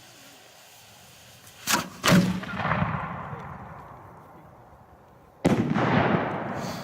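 Aerial firework shells fired from mortar tubes: a sharp crack and a louder boom close together about two seconds in, then another heavy boom about five and a half seconds in. Each report dies away slowly in a long rumble.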